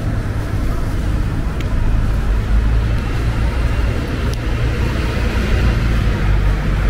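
Steady low traffic rumble on a town street, with an engine hum underneath.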